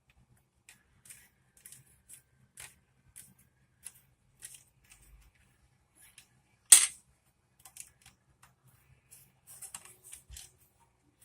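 Lego bricks being handled and pressed together: a scatter of small plastic clicks and taps, with one sharp, much louder snap a little past halfway through.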